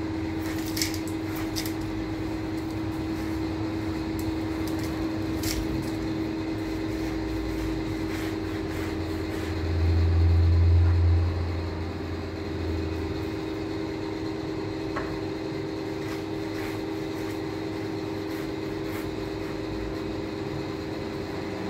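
Steady machine hum with a few light clinks of glass being handled on a tiled floor; a low rumble swells and fades about ten seconds in.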